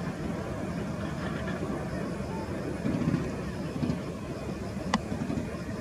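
Airbus A321-211 jet airliner on final approach, heard from afar as a low, steady jet rumble. A single sharp click comes about five seconds in.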